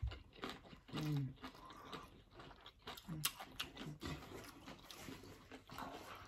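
Close-up eating sounds: mouths chewing a burrito bowl, with wet clicks, smacks and light crunches. A few short hummed "mm"s of enjoyment come about a second in and again near three and four seconds.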